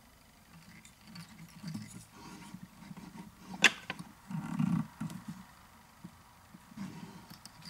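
Close-up handling noise while tying a fly at the vise: soft rustles and low bumps from fingers and materials, with one sharp click about halfway through.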